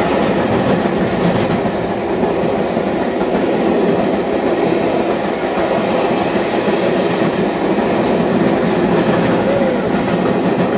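Passenger coaches of a steam-hauled charter train running past at speed: a steady, loud rumble and rattle of wheels on the rails.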